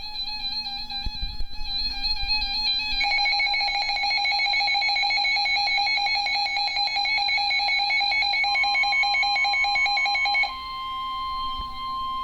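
Weather alert radio's electronic alarm sounding: a warbling beep that turns into a rapid pulsing alarm about three seconds in. About two-thirds of the way through, the NOAA Weather Radio warning tone, one steady high tone, joins it, and that tone carries on alone after the pulsing stops near the end, ahead of a severe thunderstorm warning.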